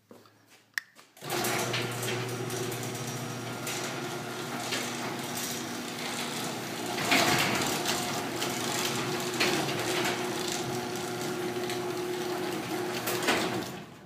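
A click, then about a second in an electric garage door opener starts, its motor humming steadily as the sectional door rattles up along its tracks, with a few louder knocks and bangs along the way; the run stops just before the end.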